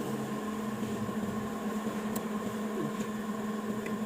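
Steady mechanical hum from an unseen running machine, with a faint click about two seconds in.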